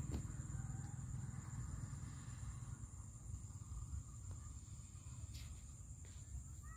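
Insects droning steadily in one high, even tone, over a low rumble that fades away.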